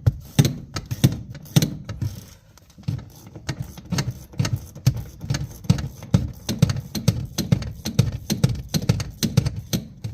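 Ratchet wrench clicking in a quick, even rhythm, with knocks, as a seat-mounting nut is worked off its stud.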